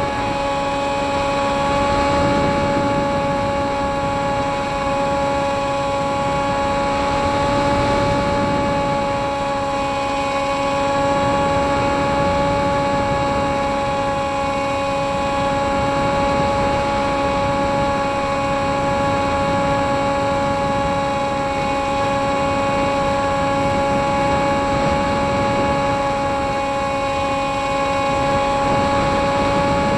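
Model airplane's motor and propeller running at a steady cruise, heard from the plane's onboard camera: a constant droning tone with its pitch holding nearly level, over the rush of wind on the microphone.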